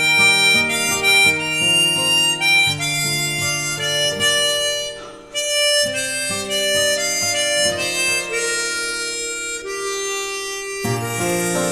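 Harmonica playing a slow melody in long held notes, often several notes at once, with a brief break about five seconds in.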